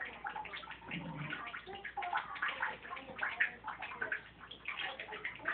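A ferret and a small dog play-fighting on a bath mat: rapid, irregular scuffling and scratching.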